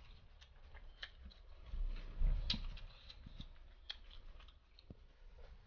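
Eating crispy fried chicken: chewing and the crackle of the breaded skin as the pieces are torn apart by hand. Scattered small crackles, with a louder stretch about two seconds in.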